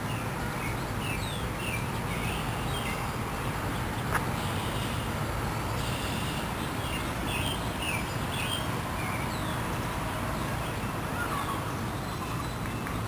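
Wild songbirds chirping, many short high calls repeated throughout, over a steady low background rumble, with a single click about four seconds in.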